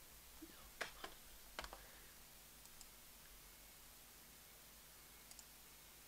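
Computer mouse clicking: a few sharp clicks in the first two seconds and a faint pair near the end, over near-silent room tone.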